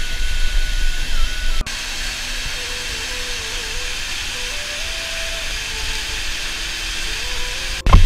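Steady hiss and rush of a mountain waterfall, with a heavy low rumble until an abrupt cut about a second and a half in, after which it is a smoother, even hiss. A soft background-music melody runs faintly over the water.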